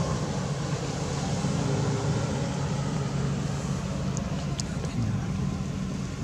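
Steady low rumble of outdoor background noise with a faint low hum. A couple of faint high ticks come about four and a half seconds in.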